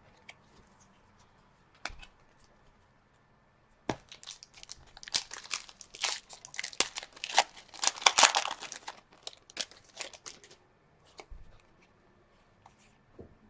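A foil trading-card pack wrapper being torn open and crinkled: a couple of light clicks, then about six seconds of dense crackling starting about four seconds in, fading to a few faint ticks.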